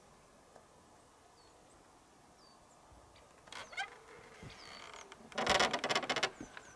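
Birds calling: faint, thin, high chirps repeat throughout, a rising call comes about three and a half seconds in, and a loud chattering rattle lasting about a second comes near the end.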